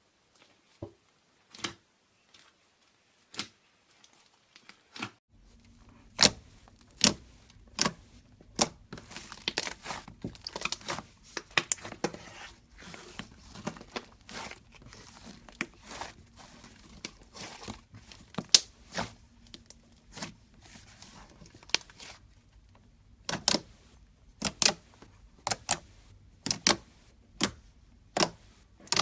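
Slime being squeezed and poked, giving irregular sharp pops and clicks, at times several a second, with softer crackling between them.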